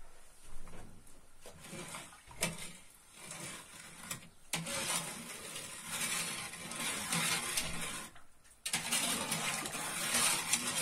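Spoon stirring sugar into water in a steel pot for helva syrup, with scattered clinks against the pot in the first few seconds. A continuous scraping follows from about four and a half seconds, broken briefly near eight seconds.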